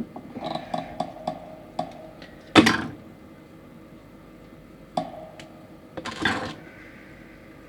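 Small plastic model-kit parts being handled and fitted: a run of light clicks, then a louder knock and rustle about two and a half seconds in, and another click and rustle about six seconds in.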